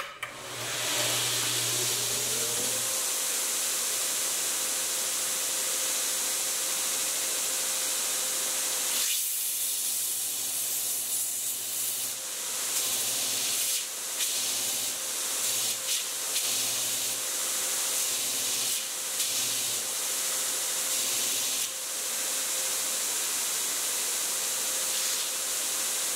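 TW90 2x72-inch belt grinder running with a loud, steady belt hiss. A motor whine rises over the first couple of seconds and settles to a steady tone. From about nine seconds in, a lower grinding note comes and goes every second or two as knife blades held on a magnetic chuck are pushed back and forth under the contact wheel.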